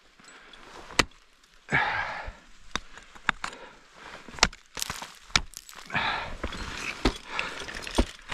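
Ice axes and crampons striking frozen waterfall ice: about eight sharp hits at uneven intervals, with two short rushes of hissing noise between them, near two seconds in and again near six seconds.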